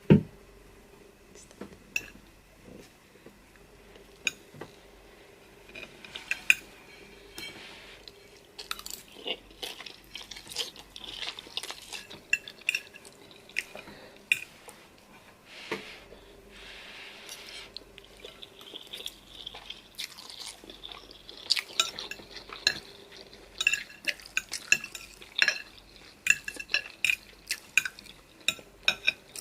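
Cutlery clinking and scraping against plates and bowls during a meal of noodles and chicken. The clicks are irregular, with a sharp knock right at the start, and come more thickly in the last third.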